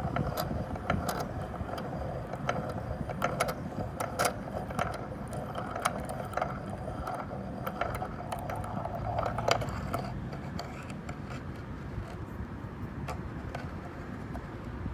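An object being crushed: a run of irregular sharp cracks and clicks over a steady mechanical whir.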